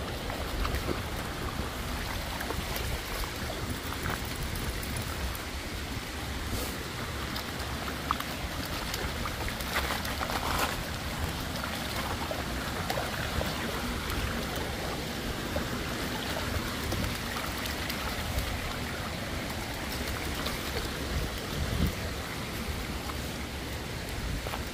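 Steady wind rush and rumble on a phone microphone, with faint scattered crunches of footsteps on loose stones.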